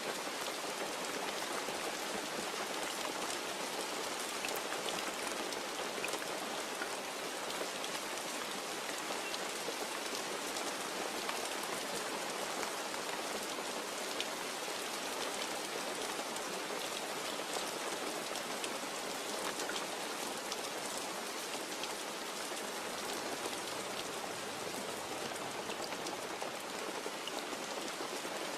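Steady rain falling, a dense even hiss with many small drop ticks on a surface; no thunder.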